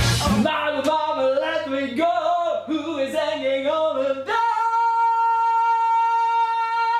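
A man singing alone with no accompaniment: a short phrase of wavering notes, then one long high note held steady from a little past halfway.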